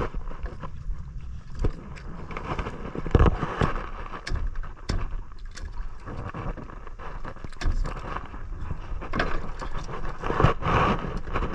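Wind buffeting the microphone over splashing water, with scattered knocks throughout.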